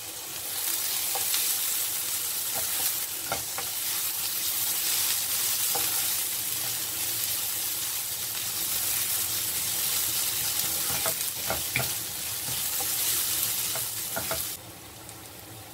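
Chopped onion, curry leaves and crushed ginger and garlic sizzling in oil in a nonstick frying pan, stirred with a wooden spatula that scrapes and knocks against the pan. The sizzling falls away sharply near the end.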